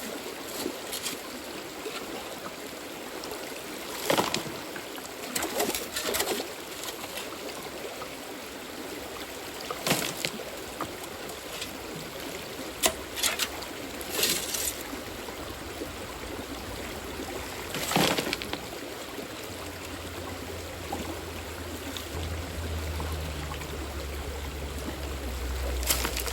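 Gold pan being worked in creek water: water sloshing and splashing out of the pan every few seconds over the steady run of the creek. A low rumble comes in during the second half.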